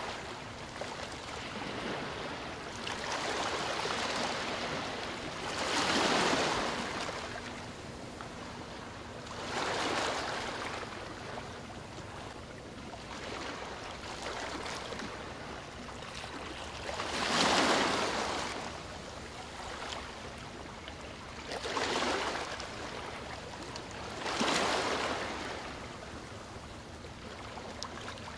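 Small river waves washing onto a sandy shore: a rushing sound that swells and fades every few seconds, loudest about two-thirds of the way in.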